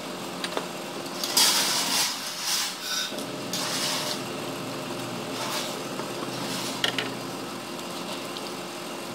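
Hands working the coolant hoses and plastic fittings in a Volkswagen Polo 1.6 engine bay, making several short rustling, scraping and clicking noises. A steady low hum runs underneath.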